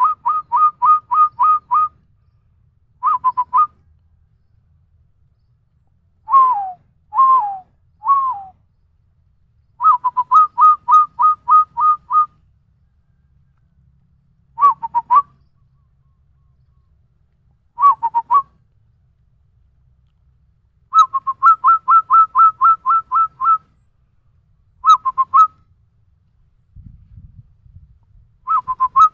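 A person whistling an imitation of a zebra dove (perkutut) call: runs of short hooked notes at about four a second, separated by pauses and short pairs of notes. Around six to eight seconds in come three longer notes that fall in pitch.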